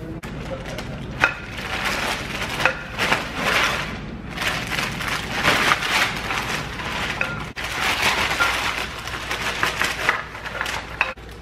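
Clear plastic bag crinkling and rustling in irregular bursts as aluminium kayak paddle sections are pulled out of it, with a few sharp clicks.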